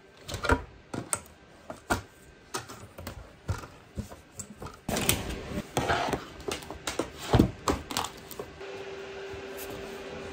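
Irregular knocks, taps and rustling from a small wooden bed table being set up over a bed and books and a laptop being put down on it, with the two sharpest knocks about half a second in and near eight seconds.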